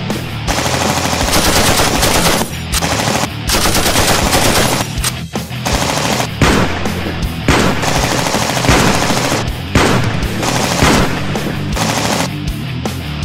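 Automatic gunfire in long bursts, several in a row with short breaks between them, over background music with a steady beat.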